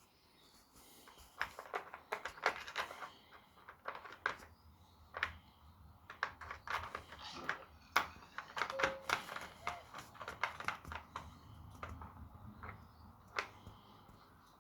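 Cat puzzle toy being worked at, giving a string of irregular clicks and knocks, several a second at the busiest moments.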